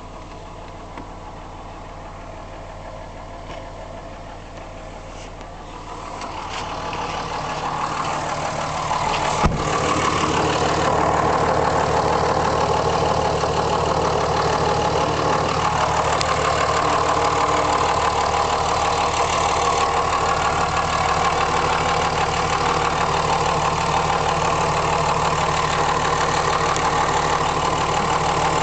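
2005 Dodge Cummins 5.9-litre inline-six turbo-diesel idling steadily. It grows louder about six seconds in, with one sharp knock about nine seconds in, and then runs on evenly. The owner asks whether the sounds from near the oil pan and the intake are normal.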